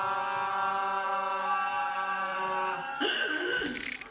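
A voice sings one long held note, unaccompanied, for about three seconds. It breaks off, and a loud vocal cry follows near the end.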